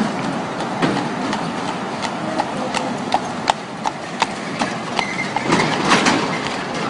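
Shod carriage horse hooves clip-clopping on city pavement at a walk, about two to three strikes a second, over steady street traffic.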